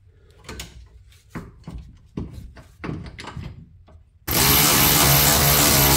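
A run of short metallic clicks and scrapes, about two a second, as the second 18 mm bolt of the control arm's inner ball joint mount is worked by hand. About four seconds in, a power tool starts suddenly and runs loud and steady with a low hum to drive the bolt.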